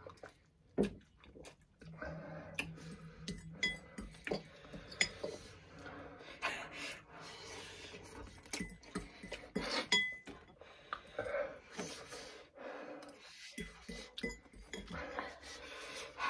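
Forks and spoons clinking and scraping against ceramic bowls, with noodles being slurped, as ramen is eaten. The clinks are short, irregular and come many times.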